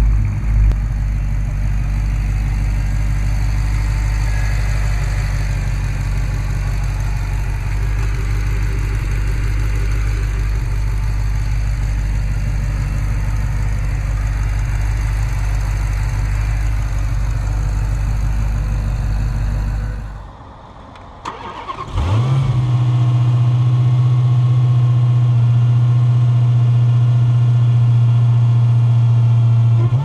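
Dodge Challenger SRT Hellcat's supercharged 6.2-litre HEMI V8 idling with a steady, deep note. About twenty seconds in it falls quiet, then it is started again: it fires with a quick rise in pitch and settles into a steady, higher idle.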